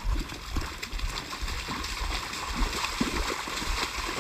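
Footsteps splashing and squelching through shallow water and mud, over a steady watery hiss, with irregular low thuds.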